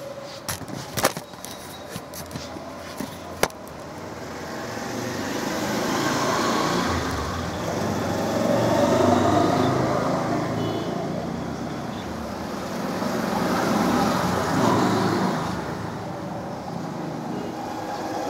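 Road traffic passing close by: the noise of vehicles swells and fades twice, loudest about nine seconds in and again near fifteen seconds. A few sharp clicks come in the first few seconds.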